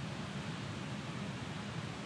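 Steady noise of wind and rain in stormy weather, an even hiss over a low, unsteady rumble.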